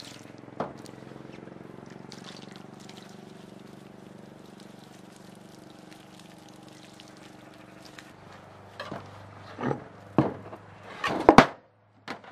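Water pouring steadily from a jug onto a freshly charred wooden board. Near the end come several loud sharp knocks, from hand tools striking the board.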